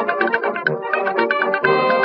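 Background music: an upbeat tune of rapid, short, evenly spaced notes.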